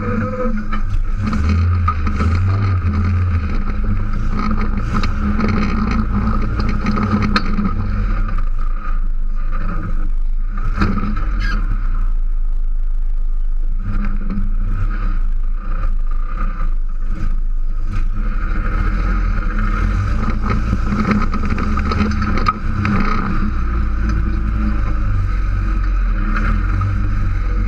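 Rock buggy engine running as the buggy crawls over rocks, heard from inside the open tube-frame cab, with scattered knocks and scrapes.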